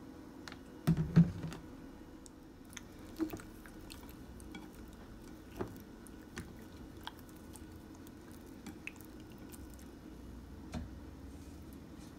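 Hands turning oil-coated trout steaks in a ceramic bowl: soft wet squishing with scattered small clicks. A cluster of louder knocks comes about a second in.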